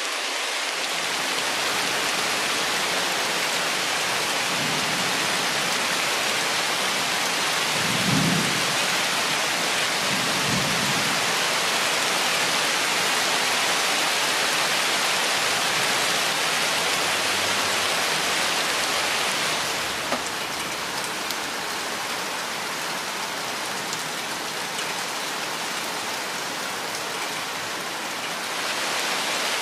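Steady heavy rain falling in a forest, an even hiss of drops, with two brief low rumbles about eight and ten seconds in. The rain eases a little about two-thirds of the way through and picks up again near the end.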